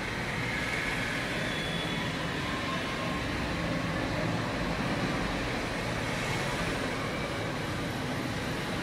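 Steady background noise: an even rumble and hiss with no distinct events, like road traffic heard through walls.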